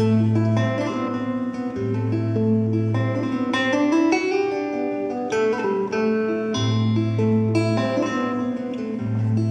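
Live music, an instrumental passage: acoustic guitar picking a run of ringing notes over long held low bass notes that drop out and return.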